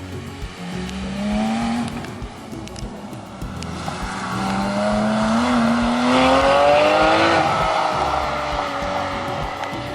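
Porsche 991 GT3's naturally aspirated flat-six accelerating hard. Its pitch climbs briefly, then climbs for a longer run before dropping sharply about seven seconds in, like a gearshift, and the engine carries on at a steadier pitch. Background music with a steady beat plays underneath.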